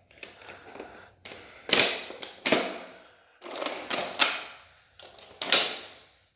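Thomas & Friends Wood Rosie toy engine rolling along a plastic playset track, clattering in about five separate bursts with short pauses between.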